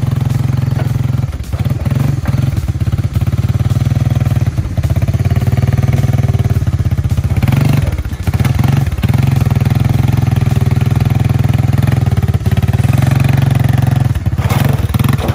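Honda FourTrax ATV's single-cylinder engine running steadily under throttle, with a few brief dips in the engine note.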